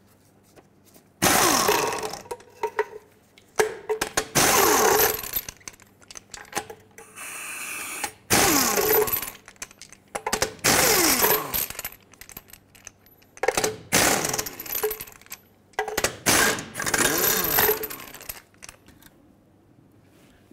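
Impact wrench zipping off a wheel's lug nuts in a series of short bursts, about six, each winding down in pitch as the trigger is released.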